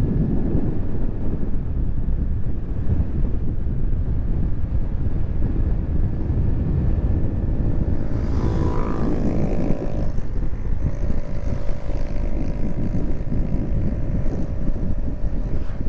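Motorcycle ridden on an open road: a steady low rush of wind and road noise with the engine running underneath. About eight seconds in an engine note rises and falls, and after that a steady engine hum holds.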